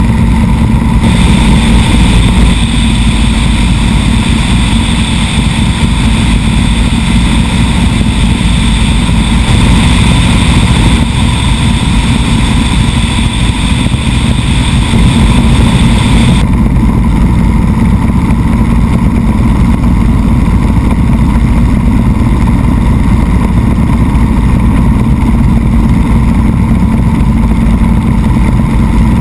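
Helicopter in flight heard from outside the cabin: a loud, steady drone of rotor and turbine with a high steady whine over dense noise. The high whine drops away about two-thirds of the way through.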